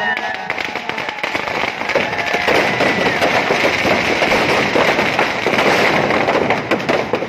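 Firecrackers and fireworks packed inside a burning Ravana effigy going off in a dense, rapid crackle of cracks and pops. The crackle thickens into a heavy barrage about two and a half seconds in.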